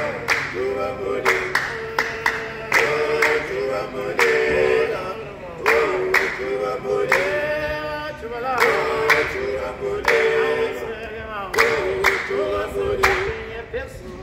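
A group of Ndebele performers singing unaccompanied in harmony, with repeated sharp hand claps marking the beat.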